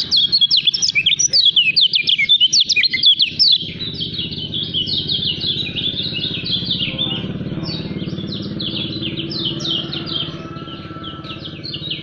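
Kecial kuning white-eye singing a fast, dense run of high chirping notes without a break, loudest in the first three and a half seconds. A low steady hum sits underneath from about four seconds in.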